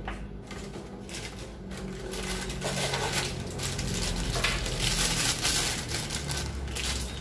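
Thin plastic bag rustling and crinkling as it is handled and opened, rising to a dense crackle from about two seconds in.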